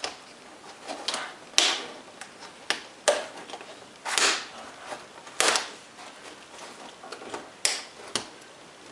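Plastic screen bezel of an HP Envy m6 laptop being pried off with a caulking knife: its retaining clips unsnap in a series of sharp, irregular clicks and snaps, about eight of them.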